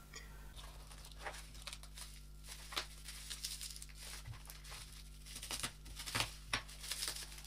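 Faint crinkling and rustling of clear plastic film and wrapping as a small package is unwrapped by hand, in irregular small crackles and ticks.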